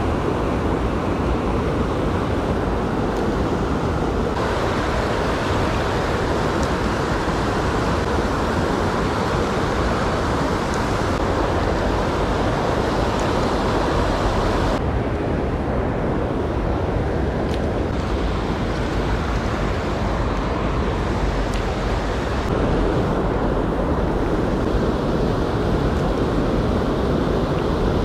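Rushing mountain stream: a steady, loud rush of flowing water, its tone changing abruptly about four, fifteen and twenty-two seconds in.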